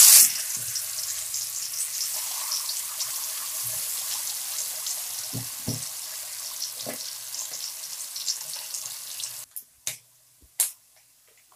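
Marinated anchovies (nethili) deep-frying in hot oil: a steady sizzle that slowly quietens. It cuts off about nine and a half seconds in and is followed by a few sharp taps.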